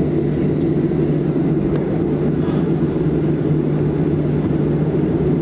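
Steady low drone and hum inside the passenger cabin of a Boeing 737-700 on the ground after landing, with no sudden sounds.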